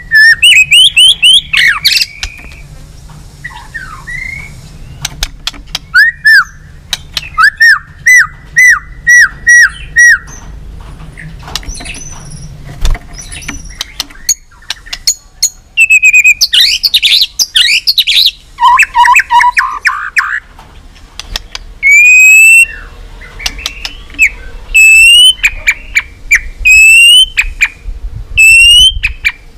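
White-rumped shama singing a loud challenge song. It runs in separate bursts with short gaps: clear whistled notes, quick series of repeated rising notes, and a denser jumbled passage about halfway through.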